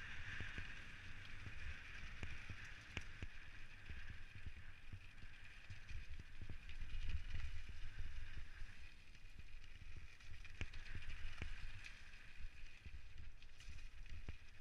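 Specialized Stumpjumper mountain bike descending a gravel trail at speed: a steady hiss of tyres on loose gravel with wind rumble on the mounted camera's microphone, broken by frequent clicks and knocks as the bike rattles over stones and roots. It is loudest about seven to eight seconds in.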